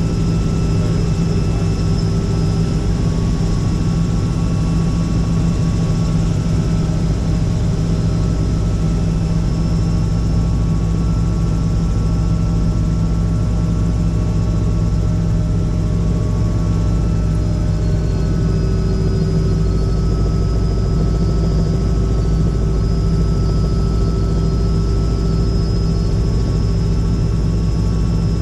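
Helicopter in flight, heard from inside the cabin: a loud, steady drone of engine and rotor.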